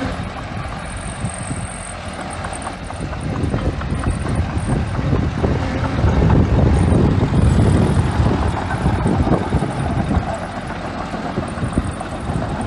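Small bulldozer's diesel engine running under load with clattering from the machine, growing louder from about three seconds in, loudest in the middle, then easing off.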